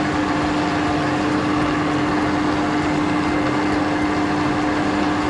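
Electric blender running steadily, its motor giving a constant hum as it whips cake batter.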